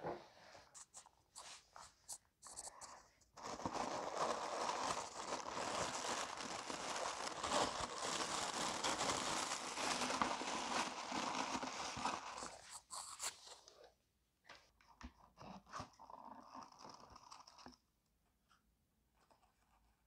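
Tissue paper in a shoebox crinkling and rustling as it is unfolded and lifted off the shoes. It runs loud and continuous from about three seconds in to about thirteen, with scattered rustles and light taps before and after.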